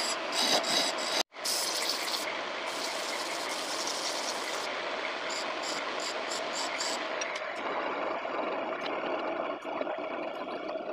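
Homemade wood lathe running steadily while a turning chisel cuts into the spinning maçaranduba hardwood blank, the hissing cut coming and going in strokes through the first half and easing off after that.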